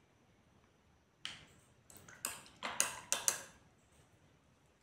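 Light clinks and taps of paintbrushes being put down and picked up among the painting things: one knock a little over a second in, then a quick run of about six sharp, ringing clinks over the next second and a half.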